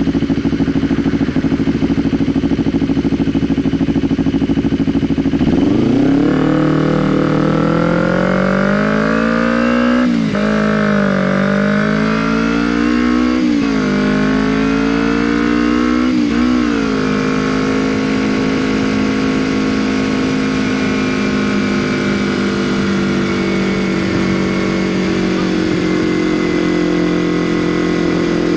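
Kawasaki Ninja 250R's parallel-twin engine idling steadily, then pulling away about five seconds in. It revs up through three quick upshifts, each a sharp dip in pitch, and then settles into a steady cruise.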